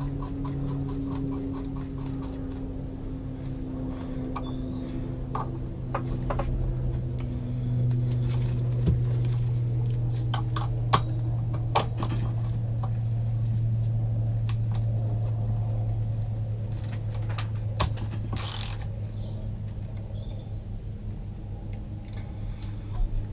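Small metallic clicks and taps of hand tools and parts being fitted on an engine's cylinder head, over a steady low hum.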